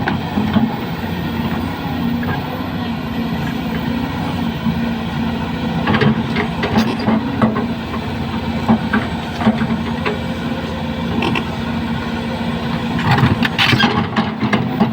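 Volvo backhoe loader's diesel engine running steadily, with scattered knocks: a few about six seconds in and a cluster near the end.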